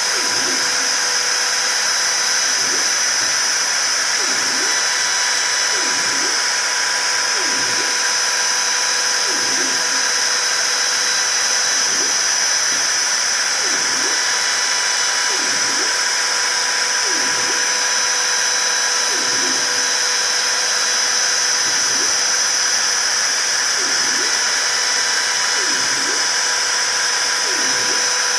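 Milling machine running steadily with a high whine, and a lower sound swelling and fading about every two seconds.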